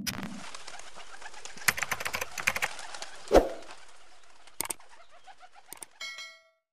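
Pigeon sound effect in a channel intro: rustling wing flaps and clicks with a low coo about halfway through. A short chime rings near the end as the subscribe button is clicked.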